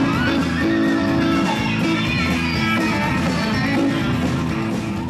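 Live band music: a fiddle bowing a blues-tempo tune over electric guitar, growing slightly quieter near the end.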